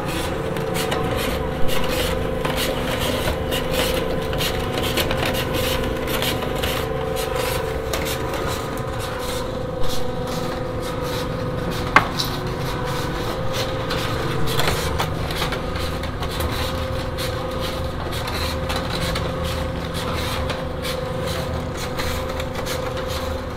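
Steel ribbon mixer with double spiral ribbons, driven by a three-phase gear motor, churning a heavy load of wet sand and soil: a steady motor hum under continuous gritty scraping of the material against the steel trough, with now and then a sharp knock. The loud scraping comes from the rough sand and soil, which holds debris and small stones.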